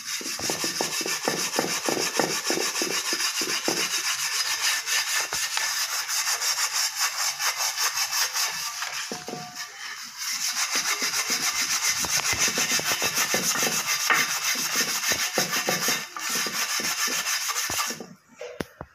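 A scrubber rubbing hard over a metal dosa tawa coated in toothpaste, in quick back-and-forth scraping strokes, scouring off burnt-on black residue. It pauses briefly about ten seconds in and again near the end.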